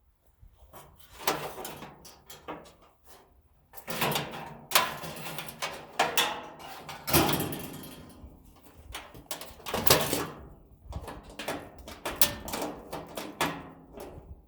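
Irregular scraping, rattling and clunking of metal parts and wiring being pulled and handled while a furnace is stripped for scrap, with several sharp knocks.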